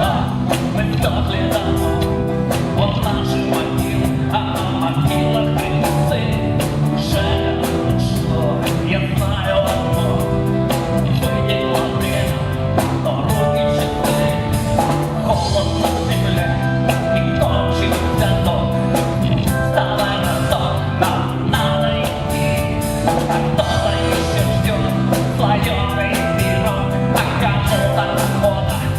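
Rock band playing a song, with drum kit, guitar and bass under a sung vocal, continuing throughout.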